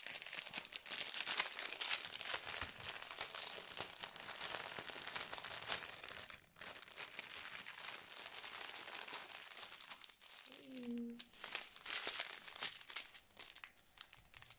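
Clear plastic packaging crinkling and crackling as hands handle it and pull it open, with a couple of brief pauses.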